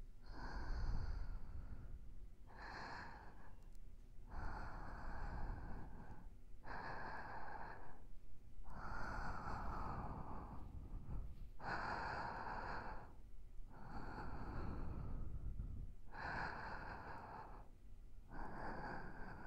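Slow, soft breaths close to a binaural microphone, heard in the left ear only. There are about nine breaths, each a second or two long, with short pauses between them.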